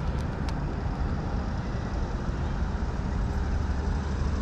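Steady low rumble of wind buffeting the microphone, with two faint clicks about half a second in.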